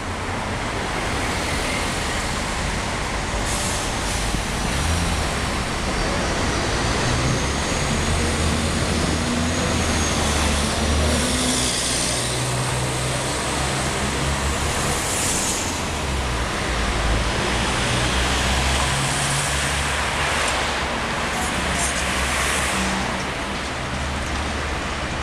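Mercedes-Benz O405 city bus with a ZF automatic gearbox pulling away and driving past, its engine note climbing and dropping back several times as it shifts up, over steady city traffic noise.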